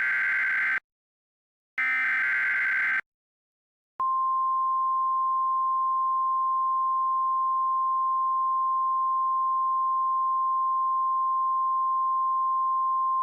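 Emergency Alert System SAME header: the end of one short digital data burst and then another, each about a second long. About four seconds in, the steady single-pitch weather-radio attention tone of about 1050 Hz starts and holds.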